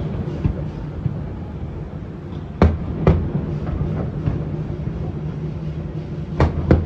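Fireworks bursting in the distance: two pairs of sharp bangs, each pair about half a second apart, over a steady low rumble.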